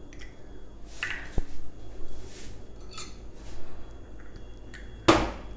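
Kitchen utensils and dishes clinking and knocking in a series of separate short knocks and scrapes, the loudest about five seconds in.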